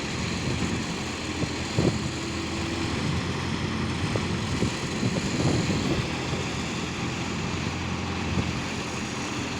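Diesel engines of hydra mobile cranes running steadily while they hold a load, with a few short knocks of metal near two seconds in and again around five to six seconds in.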